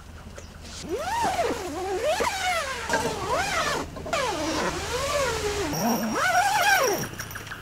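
Zipper on a pop-up tent's door panels being drawn closed in about five long pulls, each a raspy zip whose pitch rises and falls as the pull speeds up and slows around the curve of the door.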